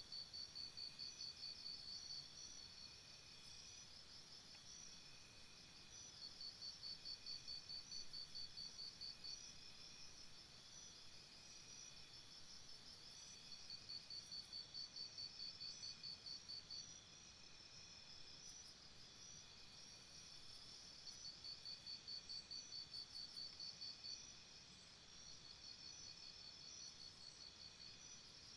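Faint jungle morning ambience of calling insects: a rapid, high pulsing call lasting about three seconds repeats every six to seven seconds, over a steady high hum of other insects and faint short, very high chirps.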